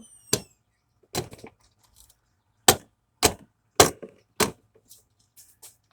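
Plastic parts of an HP inkjet printer being forced and broken apart: six loud, sharp cracks and knocks at irregular intervals, with a few fainter clicks between them.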